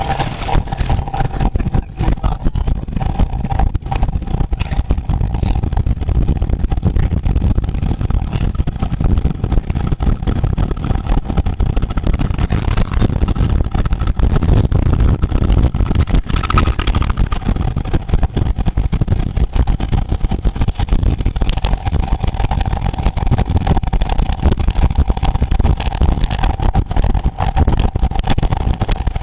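Riding noise at road speed: heavy wind rumble on the microphone, with a steady mid-pitched hum running underneath.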